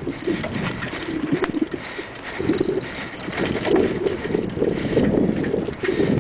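Bicycle rolling over a bumpy dirt trail: tyres crunching on dirt and the bike rattling and knocking over bumps, with wind buffeting the microphone.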